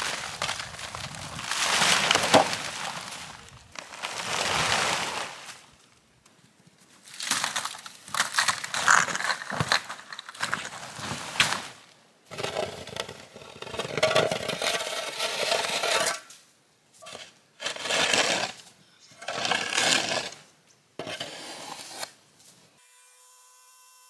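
Plastic tarp being pulled and dragged off a snow-covered lumber pile, rustling and scraping in a series of pulls a second or two long.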